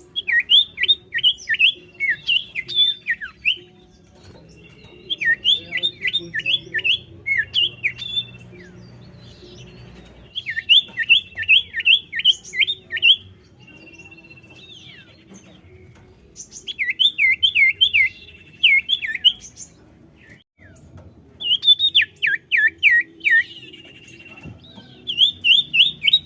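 Common iora (cipoh) calling its 'sirtu' call: bursts of about six to eight quick down-slurred notes, repeated every five seconds or so. Between some bursts comes a thin, level whistle.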